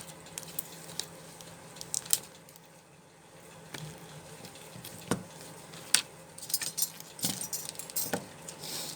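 Small metal tools and a phone being handled on a workbench: scattered light clicks and clinks, busier in the last few seconds.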